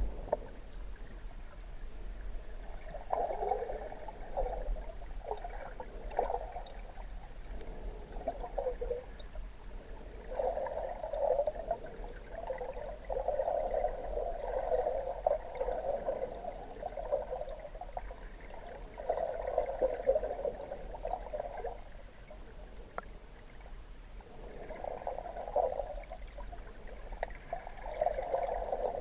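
Muffled underwater gurgling and bubbling picked up by a submerged camera. It comes in irregular bursts a few seconds long over a steady low hum.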